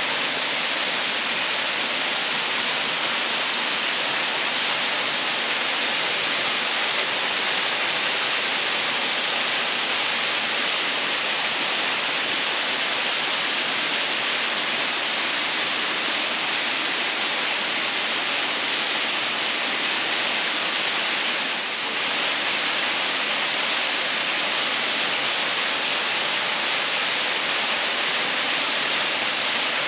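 Lower Doyles River waterfall rushing, a steady loud hiss of falling water.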